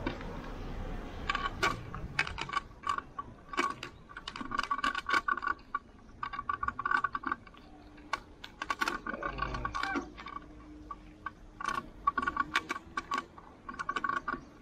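Irregular metallic clicking and rattling from the moving bicycle as it rides over the road surface, many of the rattles carrying short ringing tones at the same two pitches.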